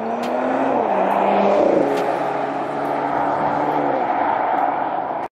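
2020 Porsche Macan Turbo's 2.9-litre twin-turbo V6 running as the car drives. The engine note steps down in pitch twice in the first two seconds, then holds steady.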